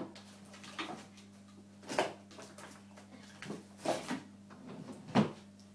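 Irregular knocks and bumps, about six, from someone handling things and moving about off to the side while fetching a book, the loudest near the end, over a steady low hum.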